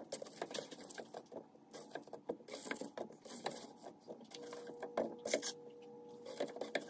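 Spatula scraping and tapping in a nonstick skillet as potatoes, corn and peppers are stirred together: an irregular run of light clicks and scrapes. A faint steady hum comes in about four and a half seconds in.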